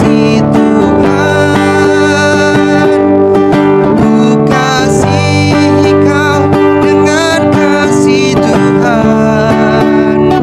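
A man singing an Indonesian worship song while strumming an acoustic guitar.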